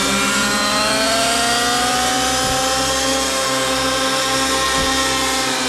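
ALIGN T-REX 700 Nitro radio-controlled helicopter in flight: its nitro engine and rotor make a steady whine of many tones that slowly rises and falls in pitch.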